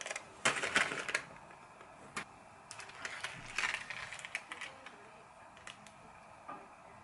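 Round metal cake pan clattering and knocking against a metal tray as a baked carrot cake is turned out of it: bursts of light metallic taps and knocks, the busiest about half a second to a second in and again around three to four and a half seconds in.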